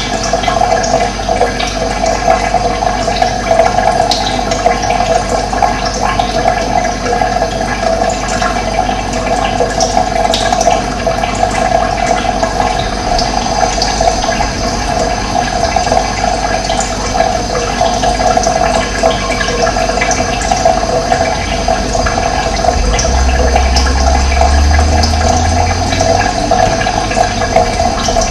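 Running water flowing steadily, with short bird chirps over it. A low rumble joins about two-thirds of the way through.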